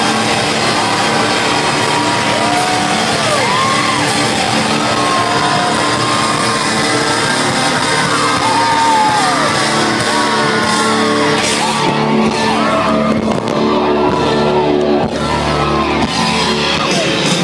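Live rock band playing loud in a large hall, heard from within the crowd, with many voices whooping and shouting over the music. About twelve seconds in the sound turns deeper and heavier at the bottom.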